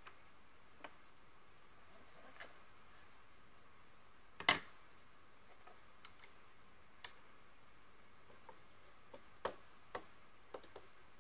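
Scattered small clicks and taps of plastic makeup cases and an eyeshadow palette being handled, with a sharp clack about halfway through that is the loudest.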